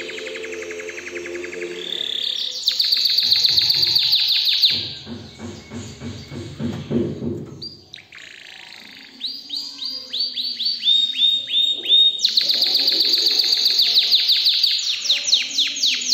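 Domestic canary singing: loud, fast rattling trills. In the middle the song drops softer and lower into a rolling passage, then comes a run of short descending notes before another fast trill near the end.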